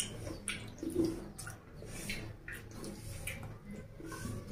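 Fingers squishing rice into oily mutton curry on a steel plate: irregular wet squelches and small clicks, with close-up chewing.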